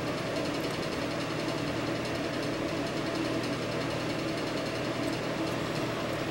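A small motor runs steadily: an even hum and whir that does not change.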